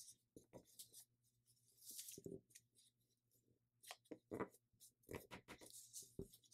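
Faint rustling, scraping and crinkling of a thin sheet of paper being folded and creased by hand, in scattered short strokes.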